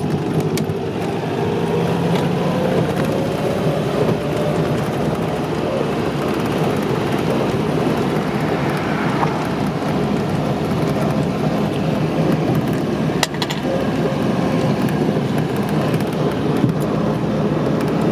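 Cabin sound of a 1947 Alvis TA-14 being driven: its four-cylinder engine running under steady road and wind noise, the engine note drifting slowly up and down. A single sharp click about two-thirds of the way through.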